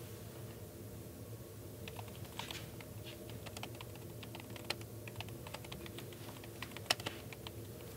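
Laptop keyboard being typed on: quick, irregular, faint key clicks starting about two seconds in, over a steady low room hum.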